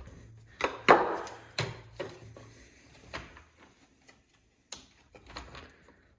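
Parts of a cutoff saw being handled and fitted by hand during reassembly: a series of sharp clicks and knocks, the loudest about a second in, then fainter taps.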